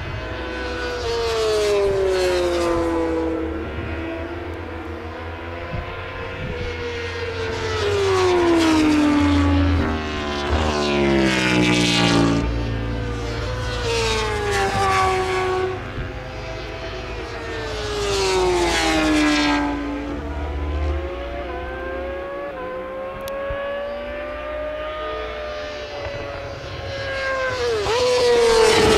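Superbike and supersport racing motorcycles passing at speed one after another, about six times. Each engine note swells and then drops in pitch as the bike goes by.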